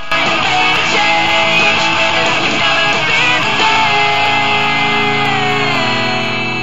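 Rock music with guitar, starting abruptly and settling into a held chord that begins to fade out near the end.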